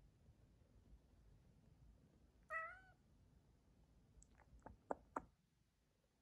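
A cat gives one short meow that rises slightly, followed about two seconds later by a few sharp clicks, the last two the loudest.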